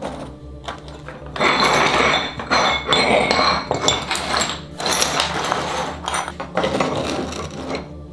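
Broken ceramic tile pieces clinking and scraping on a wooden tabletop as they are slid and fitted together, busiest for a few seconds after the first second.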